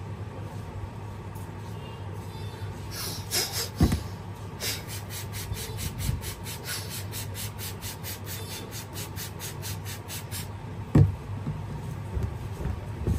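Trigger spray bottle spritzing water onto hair in a quick run of hissing squirts, about four a second, for some seven seconds. A low thump comes just before the squirting and a louder one near the end.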